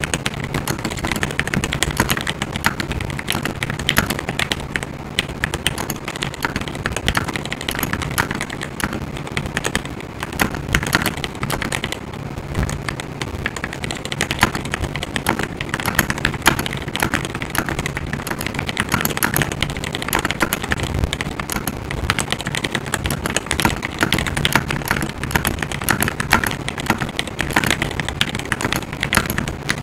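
Continuous fast typing on a GMMK Pro aluminium-cased mechanical keyboard fitted with Everglide Aqua King linear switches: a dense, unbroken stream of keystroke clacks.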